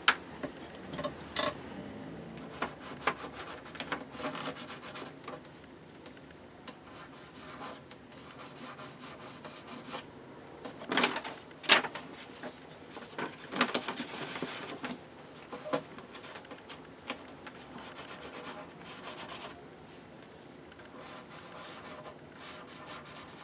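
A sheet of paper rubbed and shifted against the wooden inside wall of a pine box, in irregular scrapes with a few louder ones around the middle.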